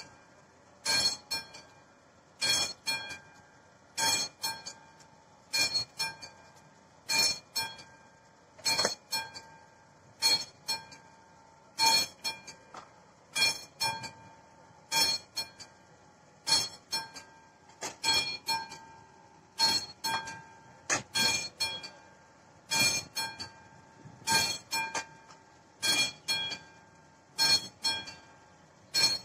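Classic electromechanical railway level-crossing bell ringing while the crossing warning is active: short clusters of metallic strokes, repeating about every one and a half seconds.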